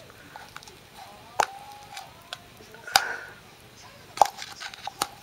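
Metal spoon clinking and scraping against the inside of an empty metal can as cooked rice is scooped out, in several sharp separate clicks, the loudest about three seconds in.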